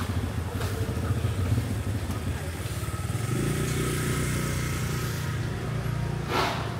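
A small motorbike engine running close by, its steady low hum growing louder through the middle. A brief rushing whoosh comes near the end.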